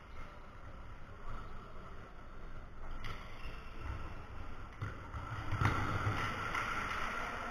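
Ambience of an indoor futsal game in a large, bare sports hall: a low rumbling din of play, with a louder thud about five and a half seconds in.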